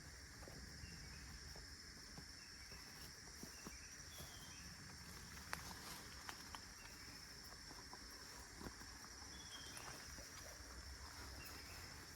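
Faint forest ambience: a steady high insect drone, a few short chirps, and occasional light clicks.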